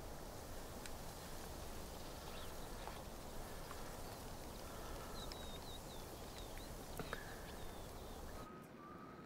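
Steady outdoor wind-and-air ambience with a few faint clicks and, a little past the middle, a short run of faint high chirps from a small bird. Near the end it cuts suddenly to a quieter room tone with a faint steady hum.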